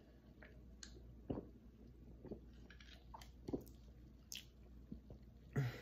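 A person sipping and swallowing soda from a plastic cup, then tasting it with faint wet mouth clicks and lip smacks, a few of them spread about a second apart.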